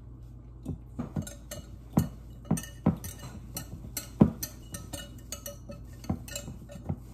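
Wire whisk clinking and knocking against the sides of a glass Pyrex measuring jug while mixing a stiff cookie dough. The clinks come irregularly, the loudest about four seconds in.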